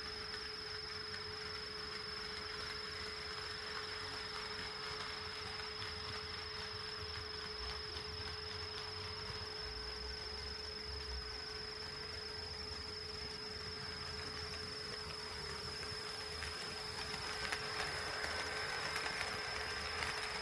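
HO-scale model train running on Kato Unitrack: a steady whirring hiss under a constant high whine and a lower hum. About 17 seconds in it grows louder, with rapid clicking as the wheels pass over the rail joints.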